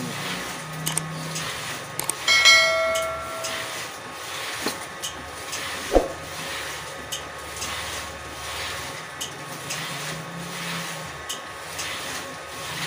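Small homemade cup screen-printing machine: a low motor hum that comes and goes, a metallic ring about two seconds in that fades over a second or so, and a sharp click near six seconds, with scattered light ticks.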